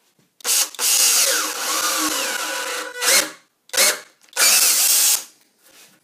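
Power drill with a Forstner-style bit boring into the edge of a wooden door for the latch, run in bursts: a brief one, a long run of about two seconds, two short pulses, then about a second more.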